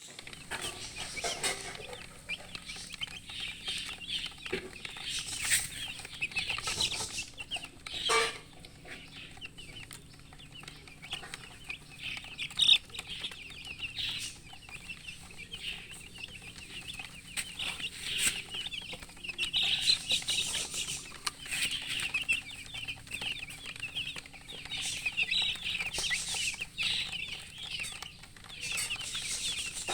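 A brood of chicks peeping continuously in many short high chirps, with a hen clucking among them and a sharp knock about halfway through.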